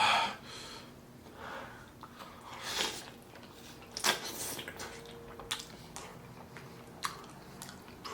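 Close-miked chewing and wet, squishy mouth sounds of someone eating a sauce-covered burrito, in several bursts with a few sharp clicks in between.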